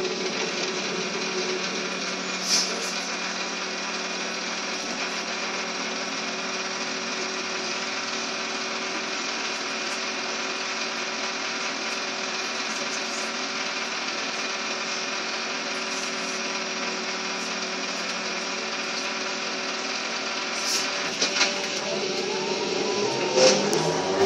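Inside a Škoda 15Tr trolleybus standing in traffic: a steady electrical hum with several held tones. Near the end a few clicks and a whine rising in pitch as the traction motor starts the trolleybus moving again.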